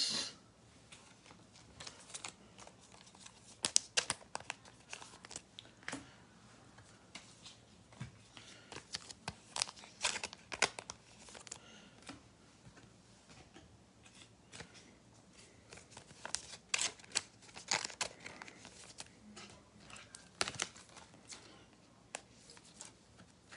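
Trading cards and plastic card sleeves and holders being handled: faint, scattered crinkles, clicks and rustles with short pauses between them.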